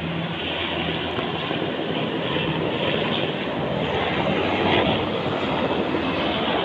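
Helicopter running: a steady, dense rotor-and-engine noise that grows a little louder in the middle.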